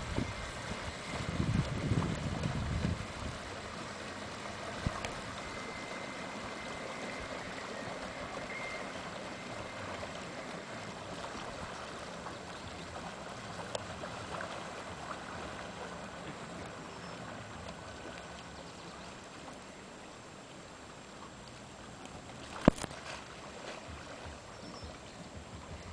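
Lake water lapping and gurgling with a steady soft hush, and no motor clearly heard over it. There is some low rumbling in the first three seconds and a single sharp click about 23 seconds in.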